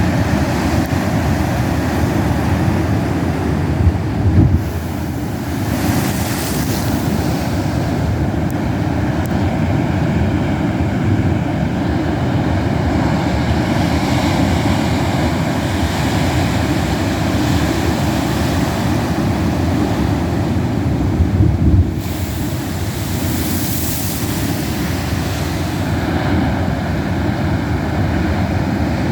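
Pacific Ocean surf at a king tide breaking against cliffs: a steady rushing roar of waves, with two heavier surges about four seconds in and again past the twenty-second mark, each followed by a hissing wash.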